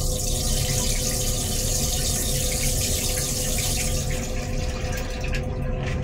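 Stainless-steel railcar toilet flushing: a rush of water sweeping the bowl that dies away about four seconds in. A steady low hum and rumble run underneath.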